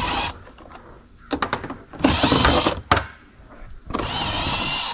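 Cordless drill-driver backing screws out of a headlight housing, running in short bursts of whine: briefly at the start, again about two seconds in, and near the end, with light clicks in between.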